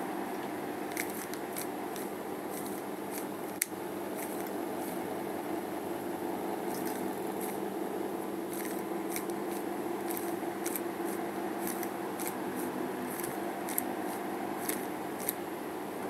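A plastic 3x3 Rubik's cube being turned by hand: irregular light clicks as the layers turn, with one sharper click about three and a half seconds in. A steady background hum runs underneath.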